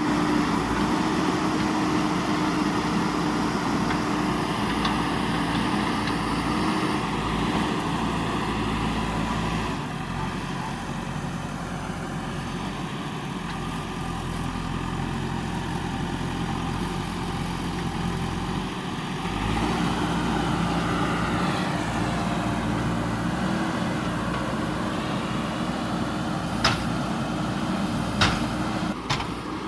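JCB 3DX backhoe loader's diesel engine running, its pitch and load shifting a couple of times. Near the end come several sharp knocks, louder than the engine.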